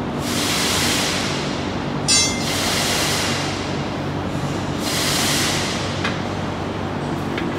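Steel tire irons prying a heavy-duty truck tire's bead over a steel rim, with one sharp ringing metal clang about two seconds in, over a steady hum and swells of hiss.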